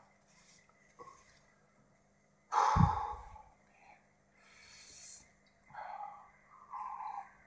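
A man breathing heavily and sighing through the burn of a superhot chili pepper: one loud, sudden exhale about two and a half seconds in, a rising hissing breath a couple of seconds later, then two shorter breaths near the end.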